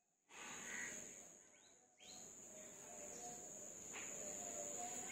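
Morning outdoor ambience: a steady high insect trill with a few short bird chirps over it.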